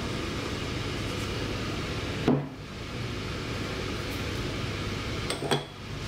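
Steady background hiss with two short knocks, one about two seconds in and one near the end: a steel espresso tamper and portafilter being handled and set down on a wooden counter.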